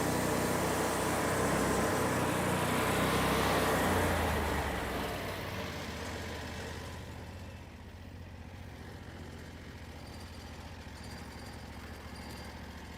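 Twin-cylinder engine of a Range Road RR5032 portable band sawmill running. About four seconds in a whine drops in pitch and the sound eases down to a quieter, steady running.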